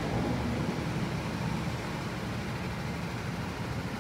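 Go-kart engines running as a pack of karts drives along the track some way off, a steady drone that eases off slightly.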